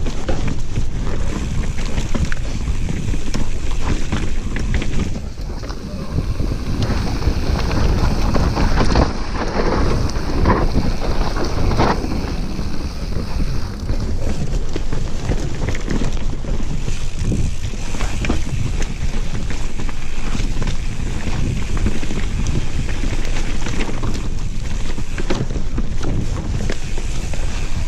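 Mountain bike descending a dirt forest trail: wind buffeting the camera microphone over the rumble of the tyres and the clatter and rattle of the bike over roots and bumps.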